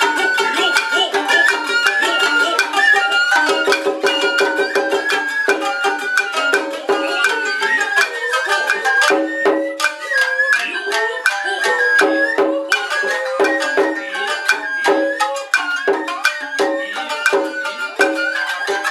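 Japanese nagauta ensemble playing: a shinobue bamboo flute melody over plucked shamisen, with frequent sharp strokes from the shime-daiko and tsuzumi drums.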